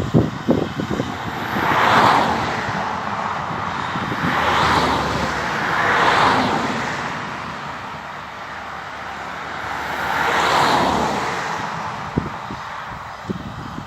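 Four vehicles passing on a road, each one's tyre and engine noise swelling and fading over a second or two, with wind buffeting the microphone at the start and near the end.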